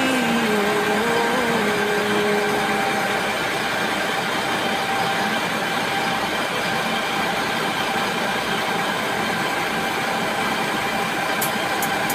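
Steady drone of running machinery in a ship's engine room, with a few steady whine tones over the noise. A wavering tone sounds over it for the first couple of seconds, and a few sharp clicks come near the end.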